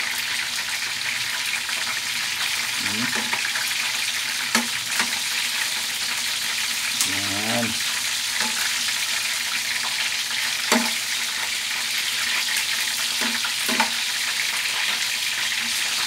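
Chicken drumsticks frying in hot oil in a pan, a steady sizzle, with a spatula knocking against the pan a few times in sharp clicks.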